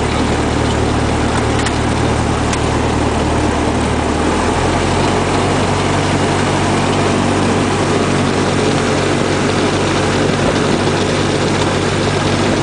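Cessna 172's piston engine and propeller running at low power, heard from inside the cabin. The engine note changes speed about four seconds in, then holds steady.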